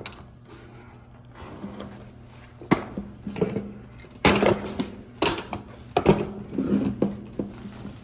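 Clatter of equipment being handled and moved: several sharp knocks and clanks spread over a few seconds, with a steady low hum underneath.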